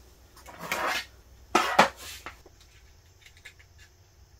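An aluminium mess tin and a food can being moved about on a slatted metal camp table: a short scrape, then two sharp clinks about a fifth of a second apart and a lighter one after. Near the end come faint small ticks of a matchbox being handled.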